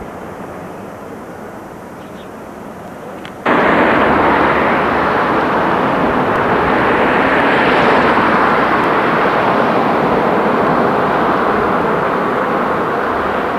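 Rushing noise of a moving car with wind on the microphone, without a clear engine note. It jumps abruptly louder about three and a half seconds in and then stays steady.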